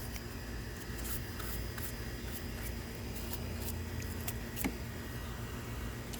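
Baking soda and water solution fizzing on acid-corroded battery terminals: faint, irregular crackling pops as the foam bubbles while it neutralizes the battery acid, over a steady low hum.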